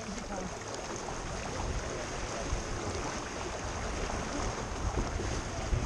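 Wind buffeting the microphone over water rushing along the hull of a sailboat under way, with gusty low rumble throughout.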